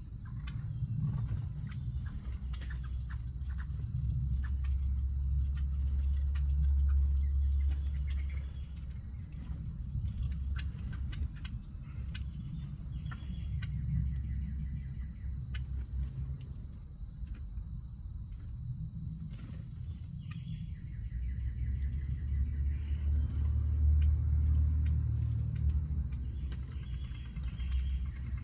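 Small backyard birds chirping in short calls at a feeder, over a low rumble of wind on the microphone that swells in two gusts. A faint steady high-pitched whine sits underneath.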